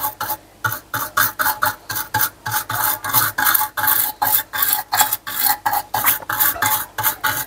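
Small brush wet with isopropyl alcohol scrubbing back and forth over a circuit board's soldered surface, in quick scratchy strokes of about four or five a second, with a short pause just after the start. It is scrubbing green corrosion left by damp from the board.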